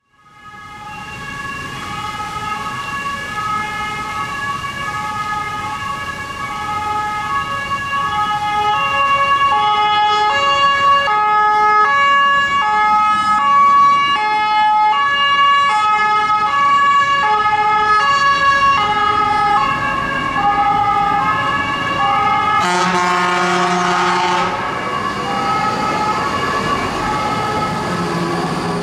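Swiss fire truck's two-tone siren alternating steadily between two pitches, growing louder over the first several seconds. About 23 seconds in, the truck's horn gives a loud blast lasting under two seconds over the siren.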